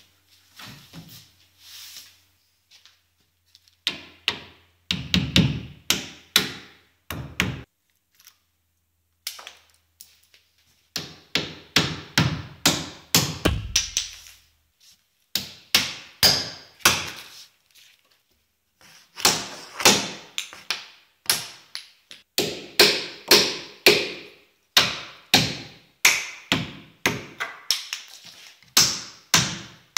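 Hammer driving small nails through a plywood sheet into a wooden frame, in quick runs of sharp taps with short pauses between nails.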